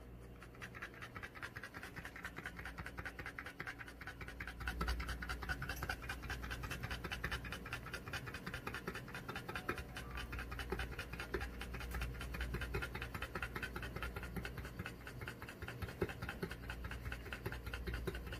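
A French bulldog panting fast and steadily, a quick even rhythm of short breaths that grows a little louder about four seconds in.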